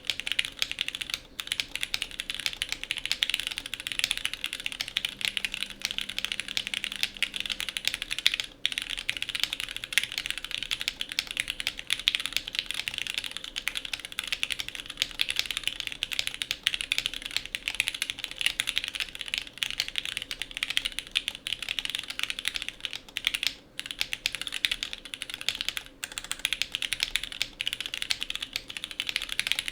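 Continuous fast typing on a custom 60Seconds mechanical keyboard with an aluminium plate, lubed Gateron Lion linear switches and CRP R4 keycaps: a dense, even stream of keystrokes broken by a few short pauses.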